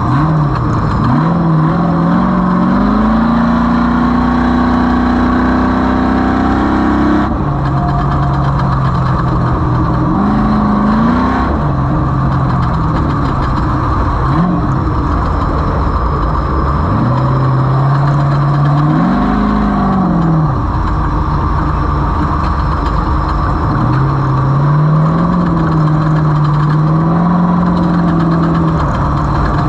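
Off-road race vehicle's engine running hard, its pitch climbing and dropping again and again as the throttle comes on and off. There is a sudden drop about seven seconds in. A steady rushing noise runs underneath.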